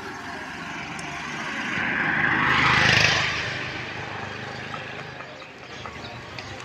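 A road vehicle passing close by: its noise builds over about two seconds, peaks about three seconds in, then fades away, over a steady background of street traffic.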